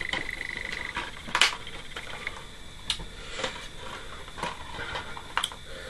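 Plastic DVD cases being handled: a few scattered, irregular light clicks and taps over several seconds.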